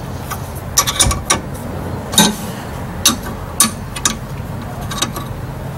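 14 mm wrench tightening the bolts of a rear disc-brake caliper: a series of sharp metallic clicks and clinks, irregularly spaced about half a second to a second apart.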